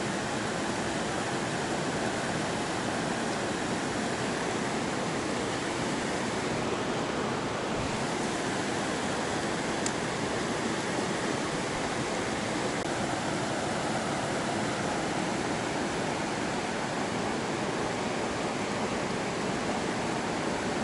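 Steady rush of a mountain trout stream's current flowing over shallow rocky riffles.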